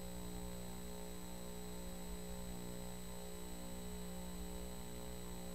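Steady electrical mains hum, a low buzz with evenly spaced overtones, over a faint hiss.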